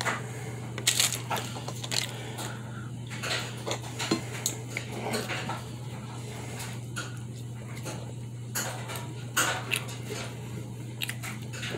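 Eating sounds from someone chewing fried banana that has been burnt on purpose to make it crunchy: scattered short crunches and clicks, with a steady low hum underneath.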